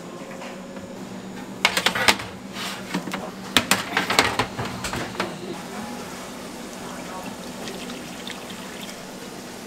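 Commercial kitchen work sounds: two short runs of clatter, about two and four seconds in, over a steady low hum.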